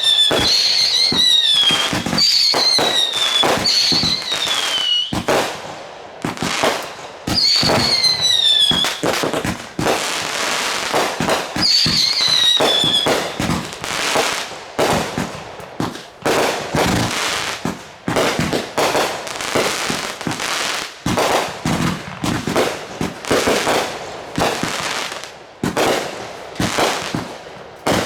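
Fireworks going off in quick succession: a dense run of bangs and crackling, with several whistles that fall in pitch during the first half.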